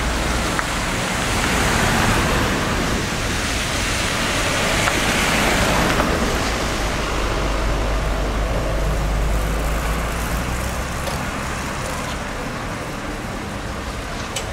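Road traffic on a slushy, snow-covered street: cars passing with a steady hiss of tyres on the wet road, swelling and easing off a few times.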